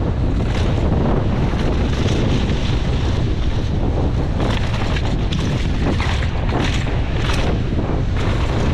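Wind rushing over the camera microphone as a downhill mountain bike descends a dry dirt trail at speed. Tyres run on the loose dirt, and the bike clatters over bumps many times.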